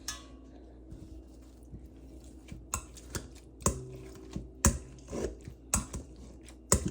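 Utensils and dishes clicking and knocking, a few faint taps and then sharp, irregular knocks from about halfway through, as mashed berries are scooped and measured.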